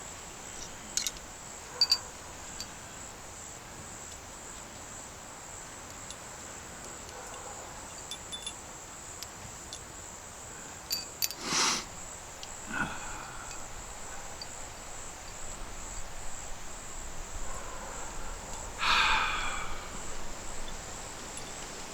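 Steady high-pitched insect chorus, likely crickets, with scattered small clicks and rustles from hands working cordage; the loudest knock comes about twelve seconds in.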